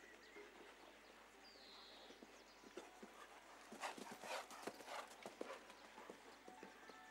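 Hoofbeats of a show jumping horse cantering on sand arena footing, a run of dull thuds that comes close and is loudest about four to five and a half seconds in, then fades.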